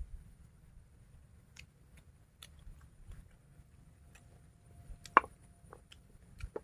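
Someone eating, soft chewing and biting sounds with scattered small clicks, and one sharp click a little past five seconds in.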